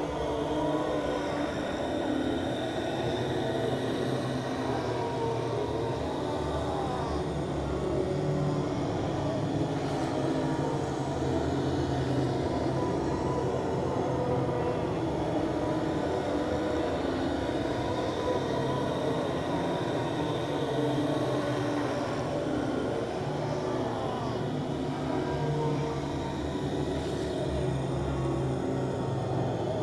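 Ghost moan sound effect: a steady drone of several held low tones, with a few slow glides in pitch drifting through it.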